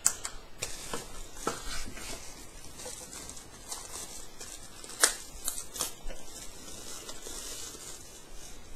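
Handling noise from unpacking and sorting speaker cables: rustling and crinkling with scattered small clicks, and one sharper click about five seconds in.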